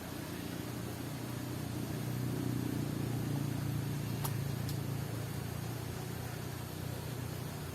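A sleeping cow snoring: a low rumble that swells a couple of seconds in and slowly fades again.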